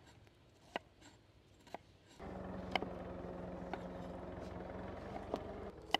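Kitchen knife chopping vegetables on a wooden cutting board: single sharp taps about once a second. A steady hum starts suddenly about two seconds in and cuts off shortly before the end.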